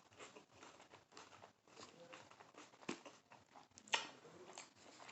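Quiet eating and handling sounds from a person eating birria tacos: faint chewing, small mouth clicks and rustles, with a sharp knock about three seconds in and a louder one about a second later.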